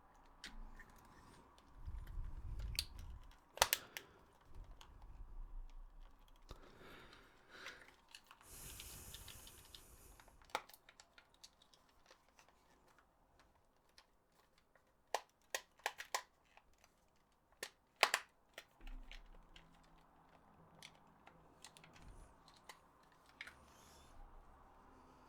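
Scattered sharp plastic clicks and light knocks from handling PS4 controller parts, with a quick run of clicks in the second half. There is a brief soft hiss about a third of the way through.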